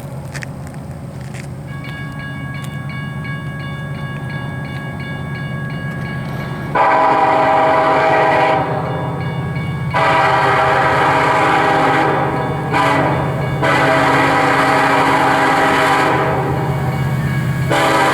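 Diesel locomotives of an approaching Union Pacific freight train rumbling louder as they near. About seven seconds in, the lead locomotive's air horn starts sounding the grade-crossing signal: two long blasts, a short one, then long blasts again.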